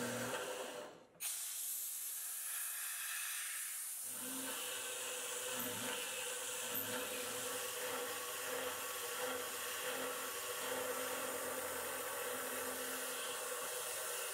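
CNC milling machine cutting aluminium with an end mill under the steady hiss of a spray nozzle blowing at the cutter, with the spindle and cut heard as a low steady drone. The sound briefly drops out about a second in, then the hiss comes straight back.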